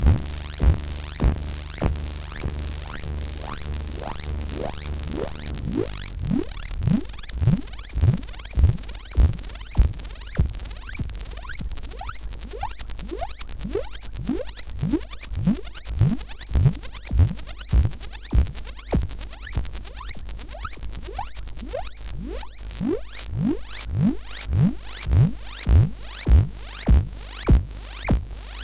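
Serge modular synthesizer running a self-triggering patch: transient generators fire envelopes at VCOs, filters and VCAs, giving a repeating pulse of clicky electronic notes over a low steady drone. From about six seconds in, each note becomes a quick upward pitch sweep, about two a second.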